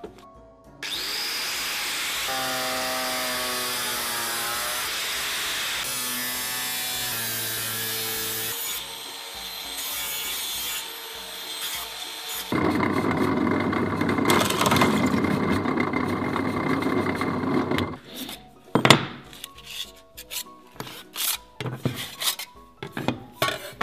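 Angle grinder with a cutting disc running and cutting through sheet metal in several separate passes, its pitch bending as the disc bites. Near the end, a few sharp knocks and clicks as cut metal pieces are handled on the bench.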